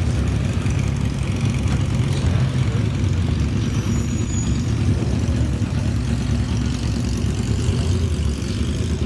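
Racing car engine idling with a steady deep rumble, the revs holding even throughout.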